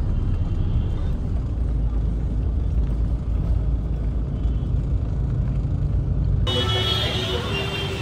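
Low, steady rumble of a car's engine and tyres heard from inside the cabin. About six and a half seconds in it cuts to open street traffic noise with horns tooting.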